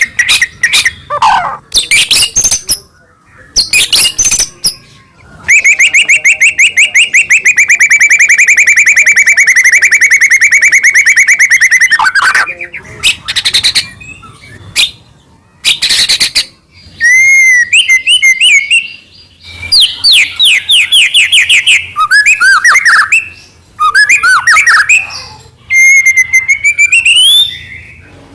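White-rumped shama (murai batu) singing loudly: varied whistled phrases and sharp clicks, with a long fast rattling trill from about six to twelve seconds in, then more whistles and sliding notes.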